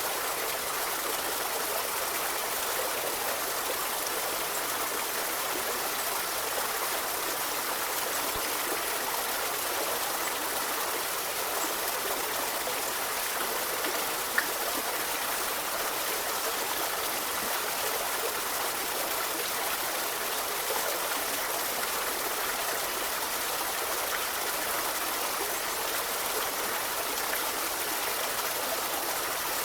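A forest river flowing, a steady even rush of water without pause. One short click about halfway through.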